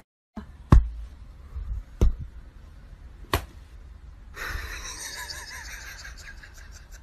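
Three sharp slaps just over a second apart, then a faint room hiss with a soft wavering sound.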